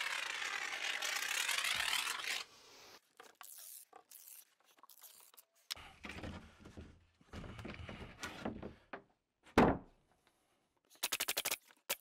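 Construction adhesive hissing out of a foam-gun nozzle for about two seconds as a bead is laid on a joist. Then come scrapes and light knocks of an OSB subfloor sheet being handled, one sharp thud a little before the ten-second mark as the sheet drops onto the joists, and a quick run of clicks near the end.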